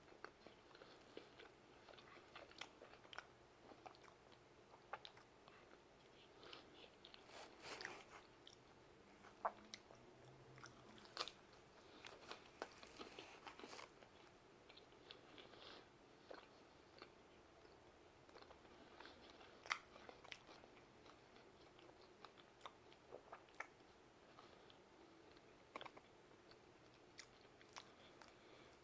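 A person faintly chewing and biting pizza, with scattered small mouth clicks and crunches and a few sharper ones.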